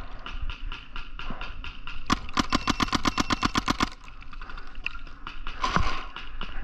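Paintball marker firing a rapid burst of about eight shots a second for roughly two seconds, with scattered single shots before and after it and a louder shot near the end.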